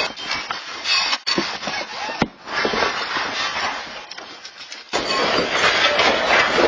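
Noisy rumbling and rattling of things shaking in a magnitude 7.0 earthquake, broken by several abrupt cuts.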